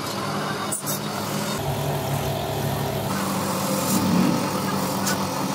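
Belt-driven wood lathe running steadily with a turned wooden hot pot body spinning on it, a steady motor hum under a broad rushing noise. There is a brief dip just under a second in.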